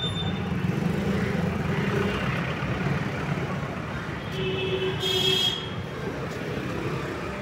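Steady road traffic noise of passing vehicles. A little past halfway, a single high tone sounds for about a second.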